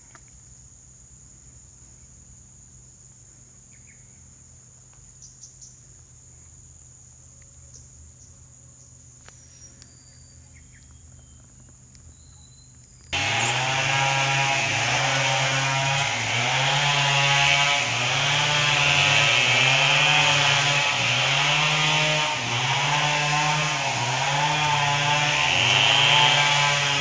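Insects chirr steadily and faintly at first. About halfway through, a homemade grass cutter's small engine suddenly comes in loud, running with its pitch rising and falling about once a second.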